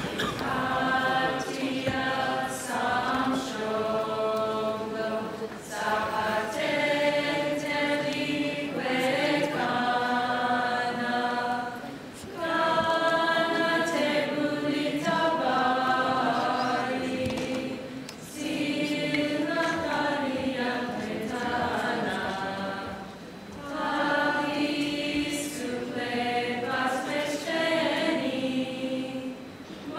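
Mixed choir of men and women singing a national anthem, in phrases of about five or six seconds with short breaths between them.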